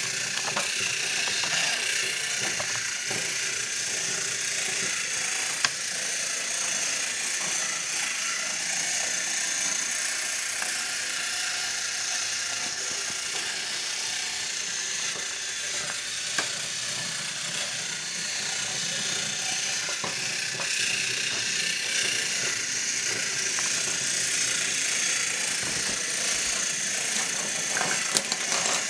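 Battery-powered toy train engine running around a wooden track, with a steady whirring of its small motor and gears. Two sharp clicks stand out, one about a third of the way in and one past the middle.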